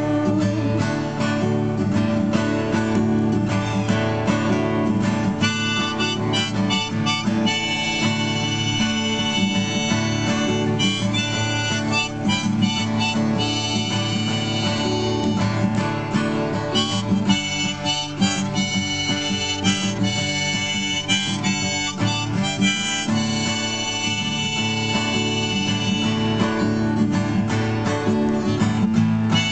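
Diatonic harmonica held in a neck rack playing a solo line over an acoustic guitar played by the same person, with no singing.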